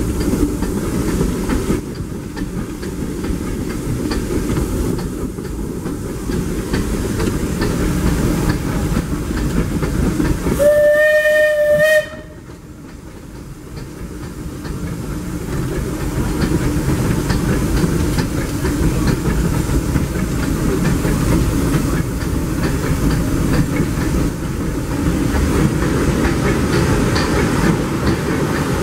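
Disneyland Railroad steam locomotive running with a steady hiss and rumble. It gives one whistle blast of about a second and a half, some ten seconds in, that cuts off suddenly. The running noise drops right after and builds back up over the next few seconds.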